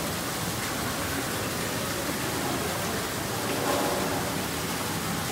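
Steady rushing noise, like running water or a fan, with faint voices in the background.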